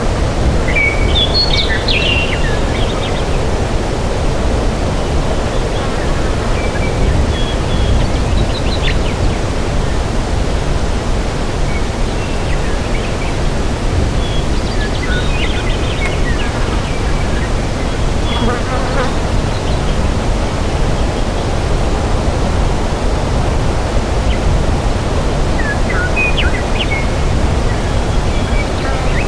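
Forest ambience: a steady, loud rushing noise with birds chirping in short high calls several times.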